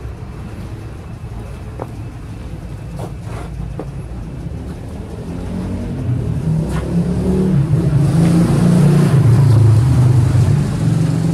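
Kawasaki Vulcan 800 Classic's V-twin engine running at idle, getting louder from about six seconds in, with a few light knocks along the way.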